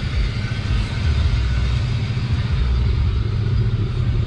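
Pickup truck engine running, a low steady rumble that grows a little louder about a second in.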